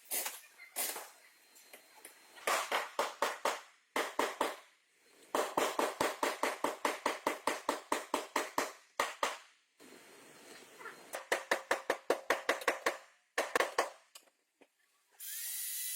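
Hammer blows on car-body sheet metal, in quick runs of about five strikes a second with short pauses between, the panel ringing after each blow. Near the end a power tool starts up with a steady high whine.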